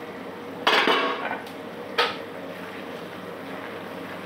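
Cookware clattering against a pan: a scraping clatter about a second in and a single sharp knock at two seconds, over a steady low hiss from the simmering vegetables.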